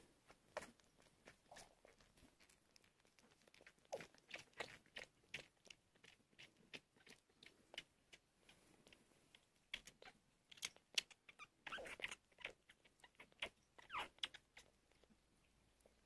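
Newborn sphynx kitten suckling at a baby bottle's rubber nipple: soft, irregular sucking clicks and smacks, a few a second, with a longer, louder stretch of sucking a few seconds before the end.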